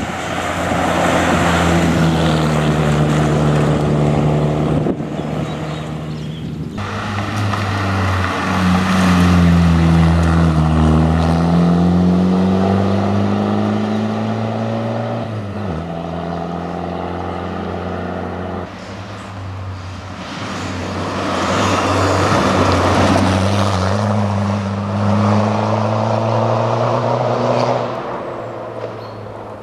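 Škoda Fabia rally car's engine driven hard on a gravel stage, revving up and lifting off, its pitch climbing and then dropping sharply at gear changes as the car comes past and pulls away several times.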